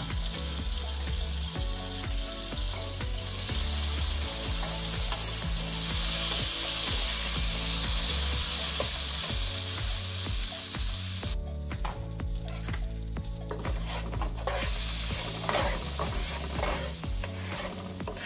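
Butter sizzling in a hot frying pan as it melts and browns, stirred with a utensil. The sizzle is strongest in the middle and falls away suddenly about eleven seconds in, followed by a few light clicks and scrapes.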